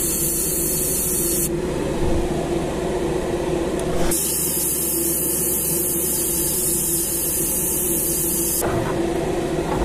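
Gravity-feed airbrush hissing in two spells of spraying, one ending about a second and a half in and a longer one from about four seconds to eight and a half, as light coats of paint go onto a jerkbait. A steady motor hum runs underneath throughout.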